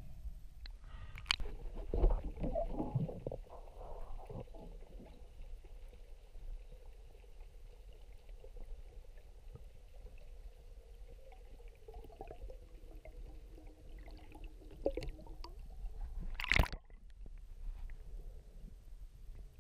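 Underwater sound picked up by an action camera in its waterproof housing: muffled sloshing and bubbling with scattered knocks, a faint steady hum through the middle, and one loud thump near the end.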